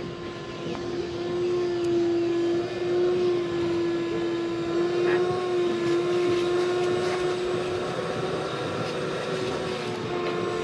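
Electric power tool, such as a headlight-restoration sander or polisher, running steadily with a constant whine.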